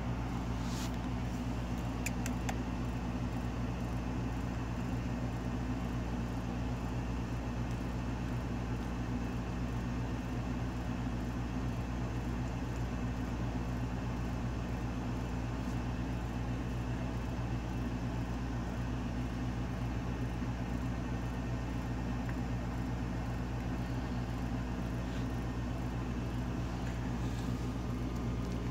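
Steady low machine hum, like a fan or air-conditioning unit running, unchanging in level throughout. A few faint clicks sound in the first few seconds.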